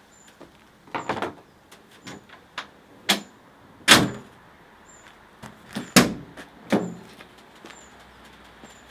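Toyota Hilux tailgate with a newly fitted gas-strut damper being worked. There is a series of latch clicks and metal clunks, the two loudest about four and six seconds in.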